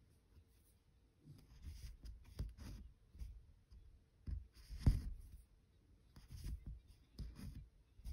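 Needle and embroidery floss being pulled through evenweave cross-stitch fabric: a series of soft, irregular scratchy rustles with light ticks, the sharpest tick about five seconds in.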